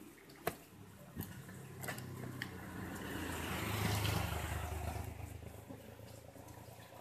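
A motor vehicle passing by: its engine hum and road noise swell to a peak about four seconds in, then fade away. A few light clicks from a screwdriver working a screw on a laptop's bottom panel sound in the first couple of seconds.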